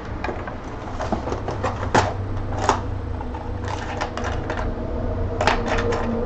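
Irregular sharp clicks and light knocks from handling the 3D printer's power supply while its voltage selector is changed from 230 to 110, over a steady low hum.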